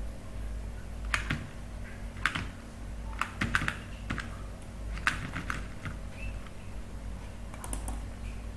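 Scattered clicks of a computer keyboard and mouse: about a dozen short, irregularly spaced clicks over a steady low hum.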